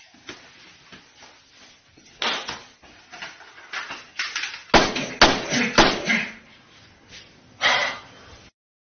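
Three heavy thumps in quick succession about five seconds in, among short snatches of speech.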